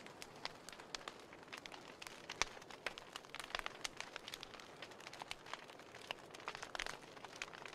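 Burning book pages crackling: a steady run of small irregular pops and snaps over a soft hiss, with one sharper pop about two and a half seconds in and a denser cluster near the end.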